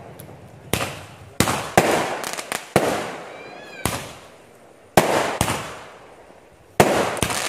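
Aerial fireworks bursting overhead: a string of about ten sharp bangs at uneven intervals, each trailing off in a rolling echo.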